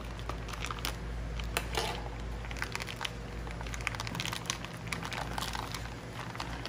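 Plastic bacon packaging crinkling and rustling as gloved hands handle it, a run of irregular small crackles and clicks, over a steady low hum.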